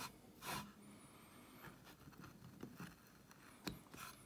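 Near silence with faint sounds of hand-carving a limewood panel: a short scrape about half a second in and a light click of the knife on the wood near the end.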